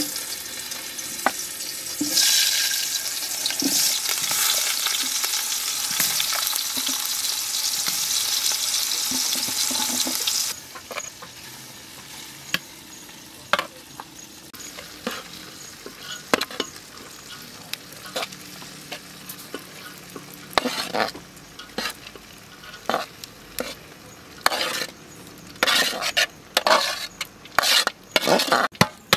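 A loud steady hiss for about eight seconds that stops suddenly, then scattered clicks and scrapes of aluminium pots, a metal tray and a colander being handled, bunching up near the end as drained rice is tipped from the colander into the pot.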